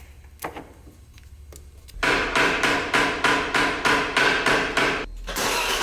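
BMW E34 525i engine being cranked by its starter: an even, pulsing churn at about four beats a second, starting about two seconds in. Near the end it turns into a steadier continuous sound. The owner puts the hard start down to fuel pressure not building up after the car has sat.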